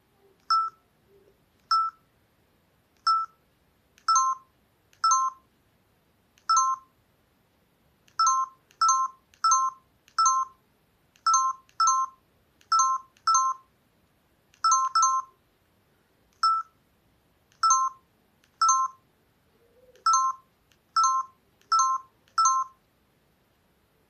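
Newgen C800 mobile phone's key beeps: a short electronic beep from the phone's speaker with each press of the navigation key, about twenty-three in all at uneven intervals of half a second to a second and a half, some coming in quick pairs.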